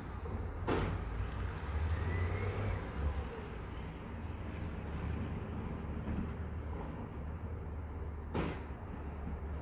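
Outdoor city background: a steady low rumble under an even hiss, with a sharp click about a second in and another near the end.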